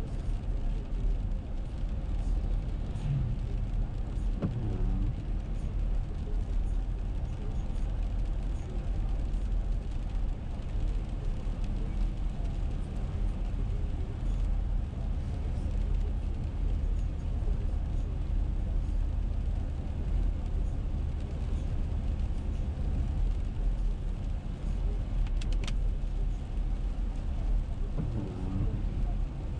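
Steady road noise of a car driving on a wet road, heard from inside the cabin: a low rumble from the engine and tyres with a hiss from the tyres on wet pavement.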